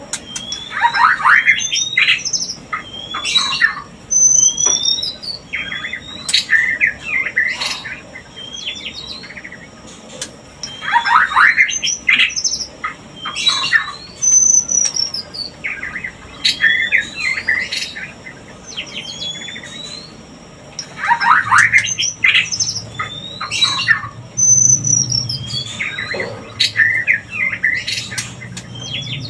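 White-rumped shama courtship calls: rising whistles, falling notes and harsh chattering in a phrase that repeats about every ten seconds. These mating calls are used to bring shamas into breeding condition.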